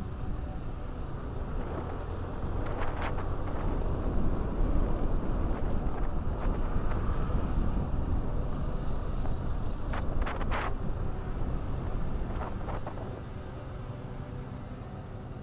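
Motorcycle riding along a road: the engine running under a heavy rumble of wind on the microphone, with a few short clicks along the way.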